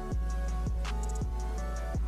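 Background music with a steady beat: deep bass-drum hits that drop in pitch, fast ticking hi-hats, and held notes.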